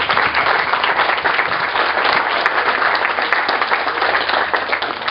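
Audience applauding, with many hands clapping steadily until it stops right at the end.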